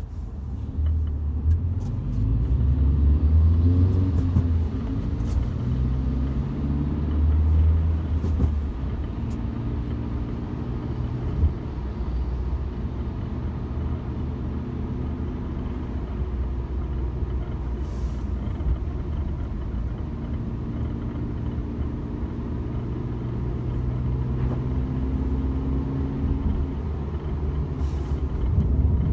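Mk7 Volkswagen GTI's turbocharged four-cylinder engine and road noise while driving: the engine pitch rises and falls in the first several seconds, then holds steady at cruise. Two faint clicks come through, one past the middle and one near the end.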